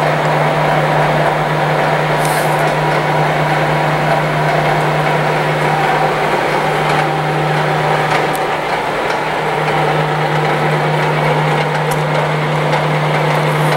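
Blanchard No. 11 rotary surface grinder running: a steady low hum with a constant whirring noise over it.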